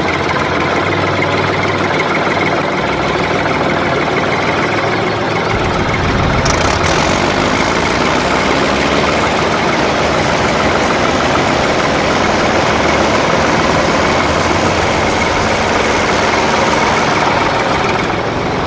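Engine running steadily, like a tractor idling. A brighter, hissier layer joins about six seconds in and drops out near the end.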